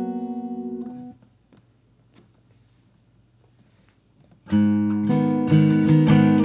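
Simon Fay Model 1 acoustic guitar, with a Sitka spruce top and desert ironwood back and sides, being strummed. A chord rings out and is damped about a second in, then there is a pause of a few seconds with faint clicks. Strumming starts again a little after the middle.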